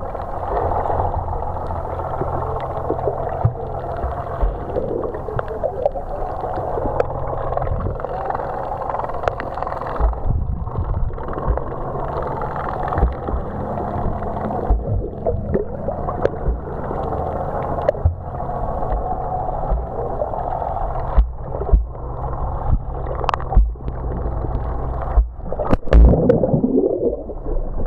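Underwater sound of swimmers kicking in the water: muffled bubbling and rushing water with scattered knocks, over a steady low engine hum carried through the water that stops near the end.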